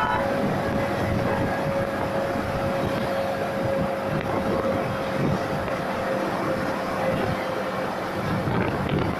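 Yamaha MT-15 V2's 155 cc single-cylinder engine cruising in sixth gear, its note steady and sinking a little over several seconds. Heavy wind rush on the microphone from riding speed runs under it.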